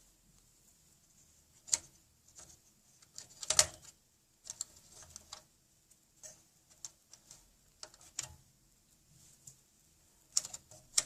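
Small clicks, taps and light scrapes of hands handling desktop computer parts, with a louder knock about three and a half seconds in.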